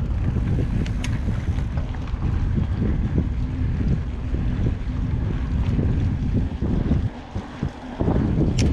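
Wind buffeting the microphone of a mountain biker's helmet or chest camera while riding, heard as a heavy, uneven low rumble. It eases briefly a second or so before the end. A sharp tick comes about a second in and another near the end.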